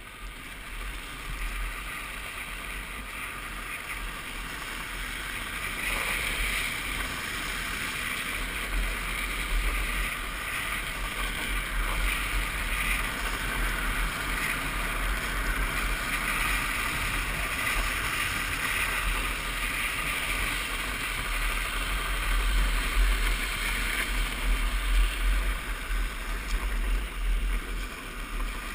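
Wind buffeting the microphone of a helmet camera while riding a drift trike downhill, mixed with the steady rolling and scraping of hard plastic drift-trike wheels on asphalt. The noise grows louder as speed builds, loudest near the end.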